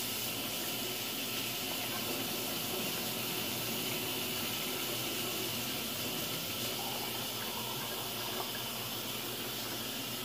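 Cold water running from a tap into a plastic cup, a steady rushing hiss that cuts off abruptly when the tap is shut.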